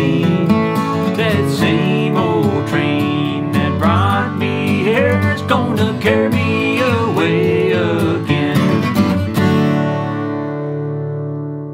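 Two acoustic guitars flatpicking a fast bluegrass instrumental passage together. Near the end the picking stops on a final chord that rings and slowly fades.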